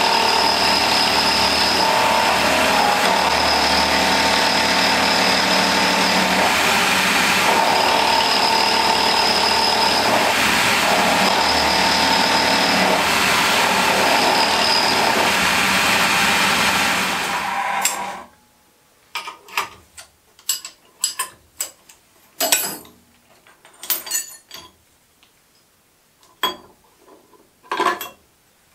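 Milling machine running with an end mill cutting a brass workpiece: a steady machine noise with a shrill tone that comes and goes. It stops about 18 seconds in, followed by scattered light metallic clinks and knocks as the clamps and the brass part are handled.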